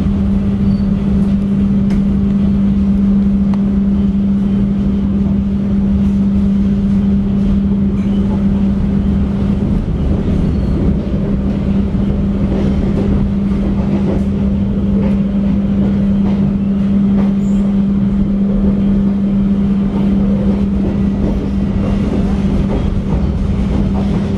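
Inside a moving passenger train coach: a steady low hum over a constant rumble, with a few faint clicks from the running gear.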